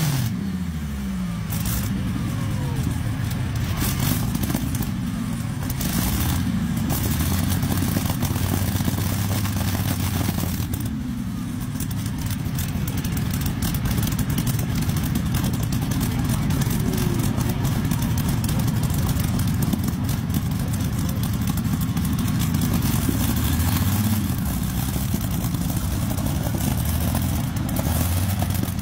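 A pulling tractor's WW2 Rolls-Royce Griffon 37-litre V12 aero engine running loud. Its pitch falls in the first couple of seconds, it eases briefly around eleven seconds, then it runs on heavy and steady.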